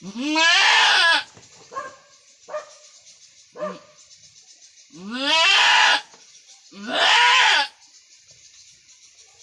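Goat bleating: three long, loud calls, the first at the start and two close together about five and seven seconds in, each opening with a rising pitch. Shorter, softer cries come between them.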